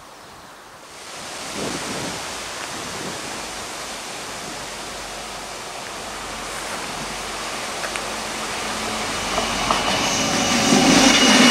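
Stadler GTW 2/6 diesel multiple unit approaching the crossing: the rumble of its engines and wheels builds steadily louder, and a high wheel squeal sets in near the end.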